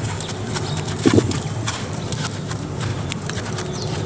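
A young Lipizzaner filly walking under saddle in a sand arena: soft hoof falls with scattered light clicks over a steady low rumble.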